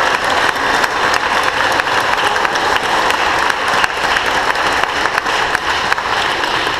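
A crowd applauding: many hands clapping steadily.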